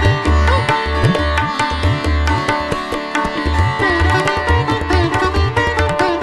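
Instrumental background music: a plucked-string melody over repeated low drum strokes that bend upward in pitch.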